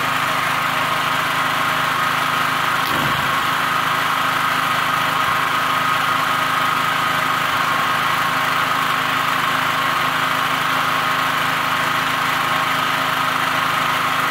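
Multipro GGA-3900 gasoline generator's engine running steadily at an even pitch, with one faint click about three seconds in.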